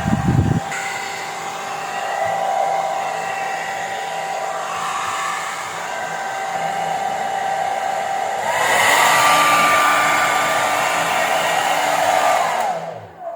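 Topmatic hair dryer running with its blower fan turning, a steady whine over the rush of air. About eight seconds in, the whine steps up in pitch and grows louder. Near the end it falls away and stops as the dryer is switched off.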